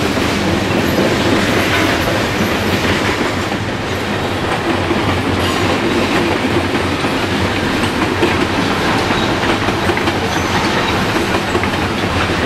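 A freight train of boxcars rolling past, its wheels running steadily on the rails.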